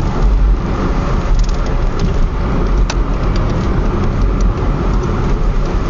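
Cabin noise inside a moving Mitsubishi Colt Plus: a steady road and engine rumble, with a few short ticks and rattles from the car's glass between about one and four and a half seconds in, the sharpest near the three-second mark. The ticking is the abnormal glass noise that the owner is recording.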